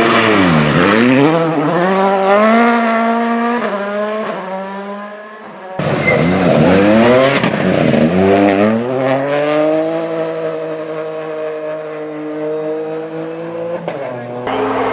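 Two WRC rally cars' 1.6-litre turbocharged four-cylinder engines at full throttle, one after the other, each revving up and dropping with quick gear changes as it passes. The first fades away about five seconds in; the second revs hard through several shifts, then its note falls steadily and fades as it drives off.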